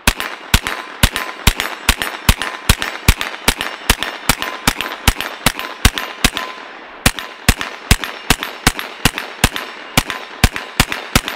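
A Ruger PC9 9mm carbine firing steel-cased 9mm rounds in rapid semi-automatic fire, about two or three shots a second, with one short break about six seconds in. The gun keeps cycling from a factory Glock magazine without a malfunction, which shows that the earlier stoppages came from the magazine and not the steel-cased ammo.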